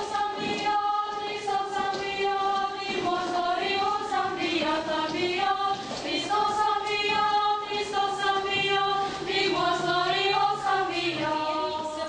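Girls' choir singing, voices blending in long held notes that move slowly from one pitch to the next.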